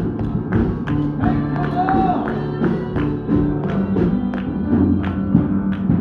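Gospel music with a steady beat and a tambourine shaken and struck in rhythm, over sustained chords and some singing.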